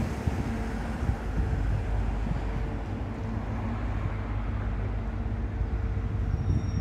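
Wind buffeting the microphone as a steady low rumble, with a faint steady hum underneath.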